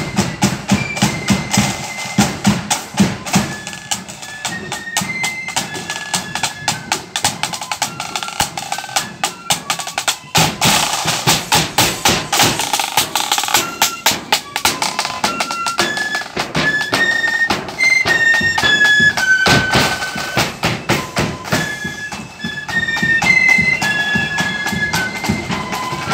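Marching flute band playing: flutes carry a tune of short stepped high notes over a steady beat of bass drum, side drums and cymbals.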